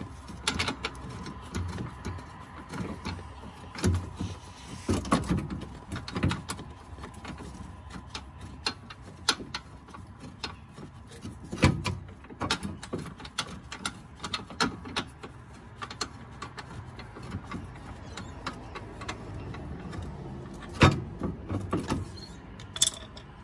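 Irregular metallic clicks, clinks and knocks of hand tools and bolts being worked on the front suspension brace and sway bar mounts under a Porsche Boxster 986. The sharpest knocks come about twelve seconds in and again near the end.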